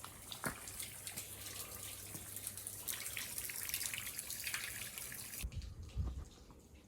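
Water running, with a crackly hiss that cuts off abruptly about five and a half seconds in, followed by a couple of low thumps.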